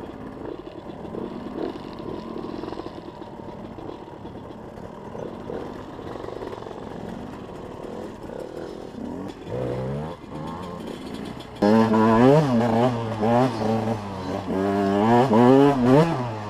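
Two-stroke enduro motorcycle engine running at low revs over rough ground, then, about two-thirds of the way through, revved hard and much louder, its pitch rising and falling again and again with the throttle.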